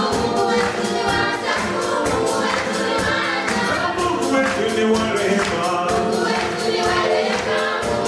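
Children's choir singing a lively song live with a band of keyboard and drum kit, the drums keeping a steady quick beat.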